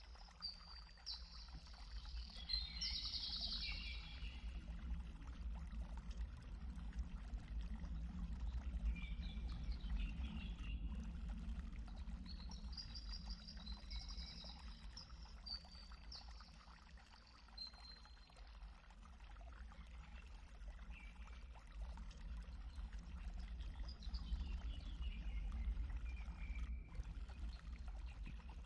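A songbird sings short phrases of quick high notes that step downward, repeating about every ten seconds over the steady rush of running water.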